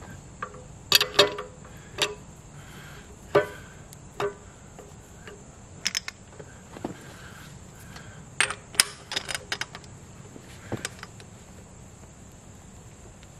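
Irregular metallic clicks and clinks from a torque wrench, socket and adjustable wrench working the pinion nut of a Dana 60 front axle as it is pulled up toward 250 ft-lb, with a quick run of several clicks about nine seconds in. A faint steady high-pitched hum runs underneath.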